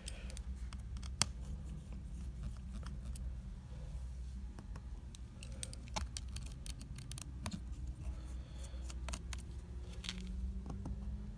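Scattered small clicks and ticks of a precision screwdriver backing out the tiny screws of an iPad mini 2's connector cover plate, over a steady low hum.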